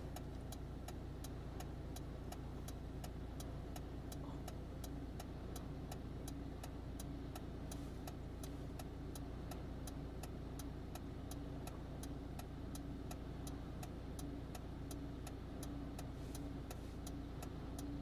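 Car idling with a steady low engine hum heard from inside the cabin, and its hazard-light flasher ticking evenly about three times a second.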